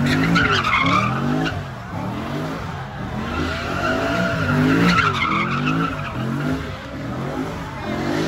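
Car engine revving up and down over and over, rising and falling about once a second, while the tyres screech as the car spins donuts in its own tyre smoke.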